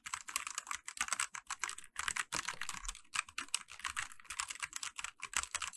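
Fast, continuous typing on a Mechanite K500W mechanical keyboard with Huano brown tactile switches and built-in silicone sound dampening: a dense run of light keystroke clicks, several a second.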